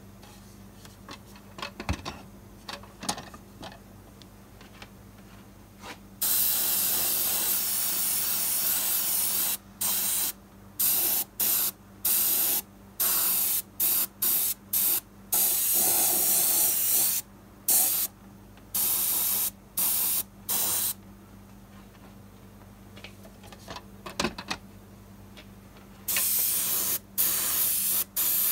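Cheap Central Pneumatic (Harbor Freight) airbrush spraying thinned acrylic weathering paint, its air hissing in on-off bursts: one hiss of about three seconds, then a quick run of short squirts, a lull, and more spraying near the end. A few light knocks come before the spraying and in the lull, over a faint steady low hum.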